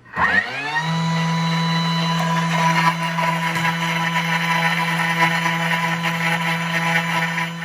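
Electric blender motor spinning up within the first second, then running at a steady high speed.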